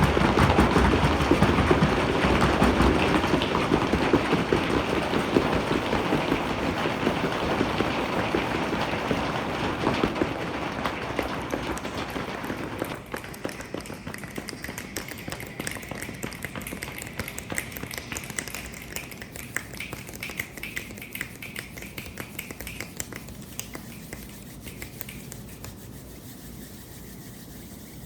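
Rain imitated with hands and feet: dense patter with low thuds, fading steadily, then about halfway through dropping to lighter finger snapping that dies away. This is the storm winding down.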